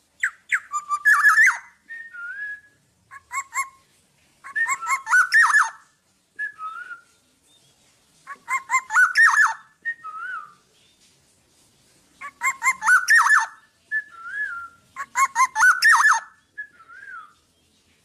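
Black-naped oriole singing. It repeats phrases every few seconds, each a quick run of notes ending in a short slurred whistle.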